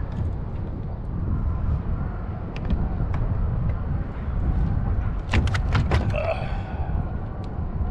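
Wind rumbling on the microphone, with a quick run of about five sharp knocks a little over five seconds in.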